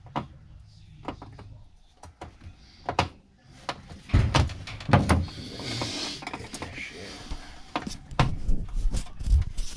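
Irregular knocks, clicks and rattles of a dryer vent duct and its clamp being handled and worked with a screwdriver, with a few heavier thuds.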